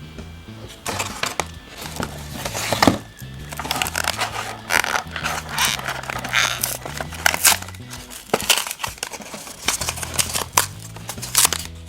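A crinkly wrapper rustling and crinkling in the hands, with many short sharp crackles and small taps, over background music with a low, slowly stepping bass line.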